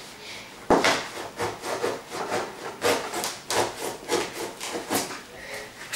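Knife blade sawing through the packing tape on top of a cardboard box: a series of short rasping strokes, about two to three a second, with a sharp loud one about a second in.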